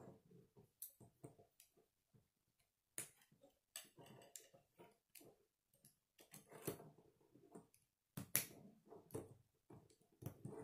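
Plastic K'nex rods and connectors clicking and snapping as they are pressed together, in scattered irregular clicks with soft handling rustle between them. The sharpest snaps come about three and eight seconds in.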